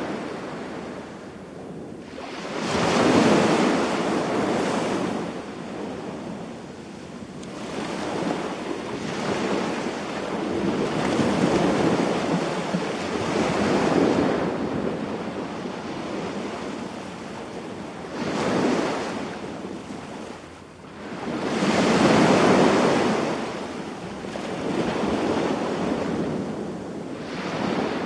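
Sea waves washing onto the beach, the surf swelling and fading every few seconds as each wave breaks and draws back.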